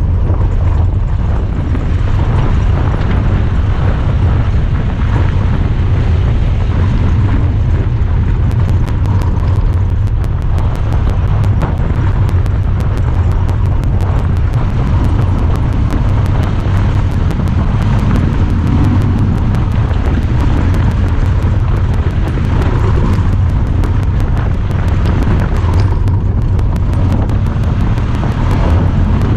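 Honda Talon 1000R side-by-side's parallel-twin engine running steadily under way off-road, a loud low rumble. From about eight seconds in, faint rapid ticking from the camera, about three ticks a second.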